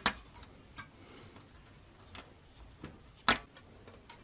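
Small plastic connectors of LED backlight strips being clicked into their sockets on a TV's sheet-metal back panel: a handful of short sharp clicks, the loudest about three seconds in, with light handling rubs between.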